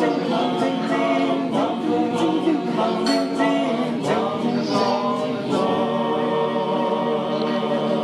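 A male choir of Orthodox monastery monks singing a cappella in harmony, closing on a long held chord in the second half.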